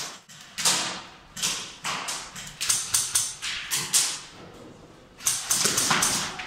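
Airsoft rifles firing irregular single shots and short strings of shots, each sharp pop echoing in a large hall.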